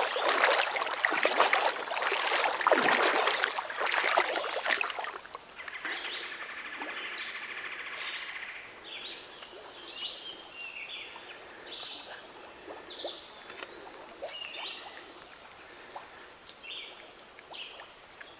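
Water splashing loudly for about the first five seconds. Then a chorus of birds chirping and calling over a faint stream, with a brief buzzing trill about six seconds in, lively enough to sound like a jungle.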